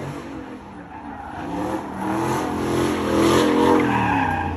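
Car engine revving hard with its pitch swinging up and down while the tires screech through a burnout or donuts. It grows louder about two seconds in.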